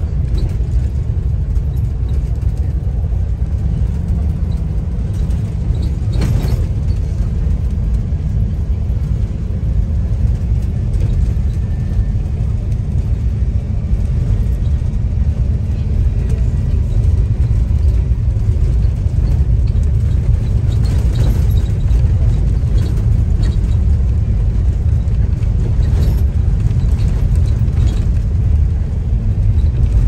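Tour bus driving, heard from inside the cabin: a steady low rumble of engine and road noise, with a few brief knocks and rattles along the way.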